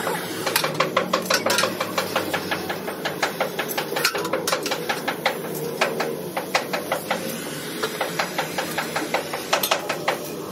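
Oxy-fuel cutting torch hissing as it burns through steel plate, with rapid ticking clicks, about six a second.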